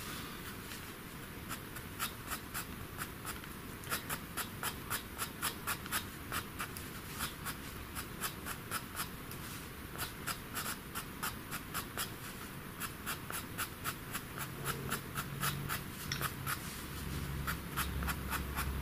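Faber-Castell Pitt pastel pencil scratching across paper in quick, short, flicking strokes, about four a second, as fur is drawn stroke by stroke.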